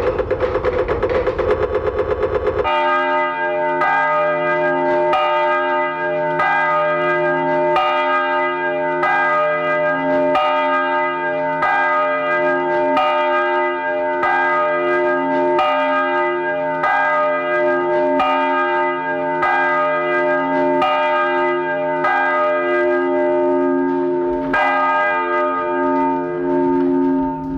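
Church tower bells ringing, several bells of different pitch struck in turn about once a second, with their tones hanging on between strikes. Before that comes a rapid clattering for under three seconds, cut off abruptly as the bells begin.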